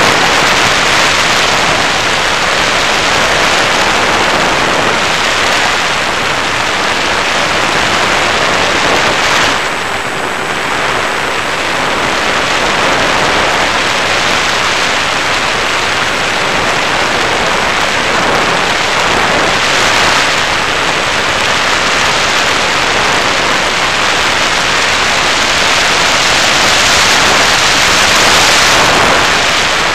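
Steady rushing wind and propeller noise picked up by a camera riding on a flying FPV Raptor model plane. The level dips briefly about ten seconds in.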